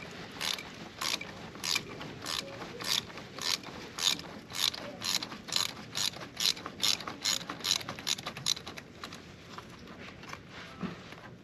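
Hand ratchet wrench clicking as a bolt is worked during motorcycle disassembly, a steady run of sharp clicks that comes faster in the middle and thins out near the end.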